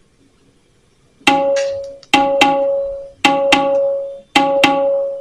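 Song playing through a Sony SRS-XB33 portable Bluetooth speaker. After about a second of silence, the track starts with a repeating rhythm of struck, pitched percussion notes that each ring out, coming in pairs about once a second.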